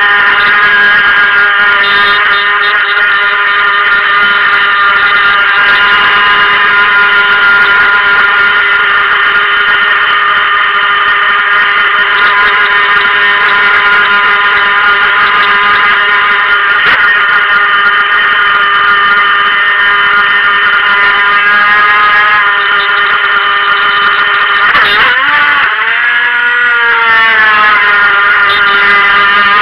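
The stock brushed motor of a Helion Rivos RC boat runs with a steady high whine. Near the end its pitch dips sharply and climbs back up.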